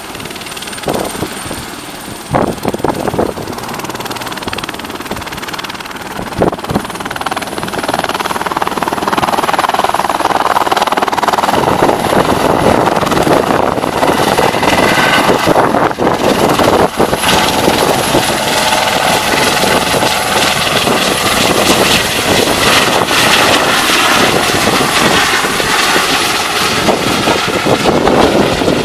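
Eurocopter EC130 helicopter taking off and climbing away: rotor noise and turbine whine. The high whine rises in pitch and the sound grows louder over the first several seconds as it lifts off.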